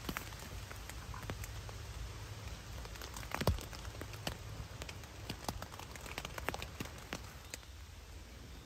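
Scattered raindrops tapping on a tarp and the surrounding leaves: irregular light ticks over a low steady rumble, with one sharper tap about three and a half seconds in.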